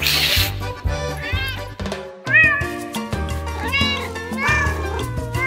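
Cat meows, about four separate rising-and-falling calls, over background music. A brief hissing burst of noise at the very start.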